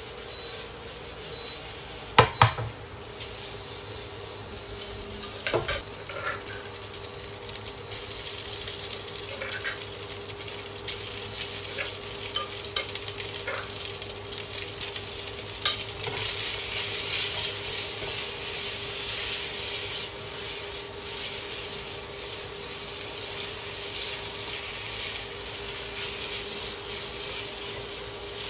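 Spaghetti sizzling in a non-stick frying pan on an induction cooktop while a spatula stirs and scrapes through it. About two seconds in there are two sharp knocks of the pan against the glass hob, and the sizzle grows louder past the middle.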